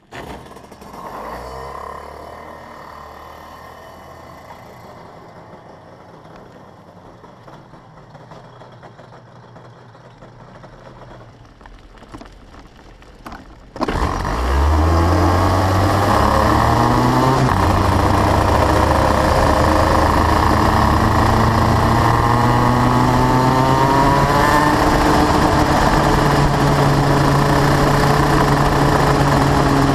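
Racing kart engine heard from a camera mounted on the kart. A fainter engine runs in the first half. About halfway through it jumps sharply louder as the kart pulls away, and its pitch rises and falls with the throttle.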